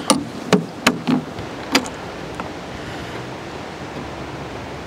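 A handful of sharp knocks and thumps as a person climbs onto the seat of an electric mini excavator and settles in, over a steady background hiss. The knocks stop about two and a half seconds in.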